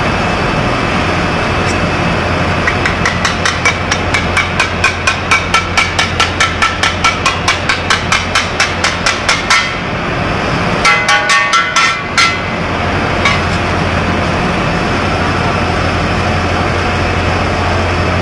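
Metal scraper blade rapping against the steel cylinder of a silver electrolytic recovery machine to knock off the recovered silver deposit: about three sharp metallic taps a second for several seconds, then a quick run of ringing knocks about eleven seconds in. A steady low hum runs underneath.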